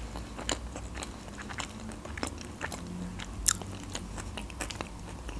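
Close-miked chewing of a mouthful of Olivier salad, with small wet mouth clicks throughout and one sharper click about three and a half seconds in.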